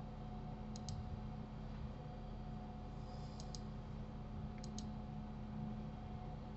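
Computer mouse clicking: three pairs of quick clicks spread over the few seconds, over a faint steady electrical hum.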